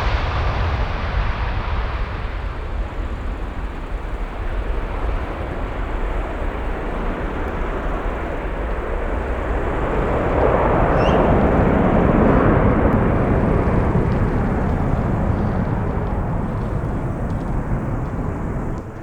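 Jet airliner's engines heard as it passes, the noise swelling to a peak about halfway through and then easing off.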